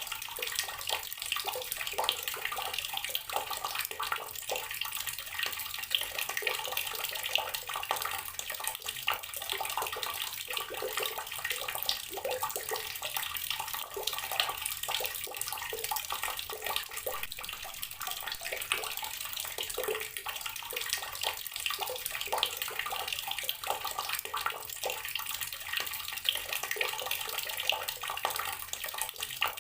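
Tap water pouring steadily into a water-filled container, a continuous splashing stream with many small splashes.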